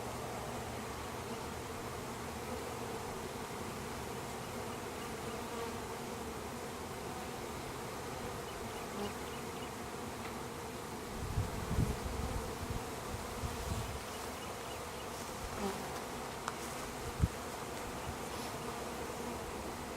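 A mass of honeybees buzzing in a steady, continuous hum while a bee package is installed into a hive. Low bumps come a little past halfway, and a single sharp knock near the end.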